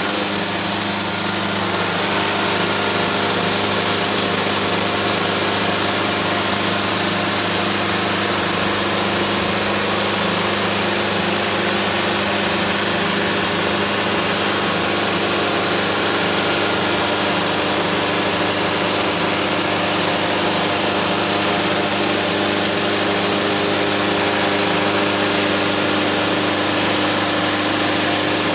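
Sawmill running steadily, its engine at a constant pitch under a strong high hiss from the blade and sawdust, with no change for the whole stretch.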